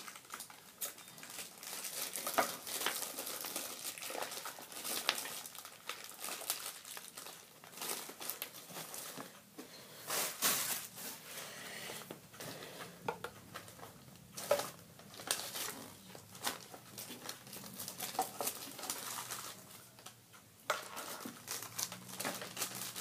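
Plastic packaging crinkling and rustling under irregular handling, with scattered louder crackles, as new speakers are unwrapped and lifted out of their box.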